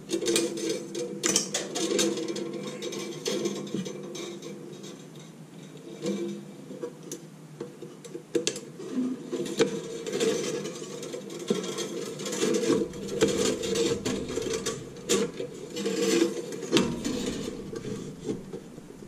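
Thin nichrome wire being pulled and threaded through the metal frame of an ice maker's cutter grid: irregular light metallic ticks, clicks and rubbing.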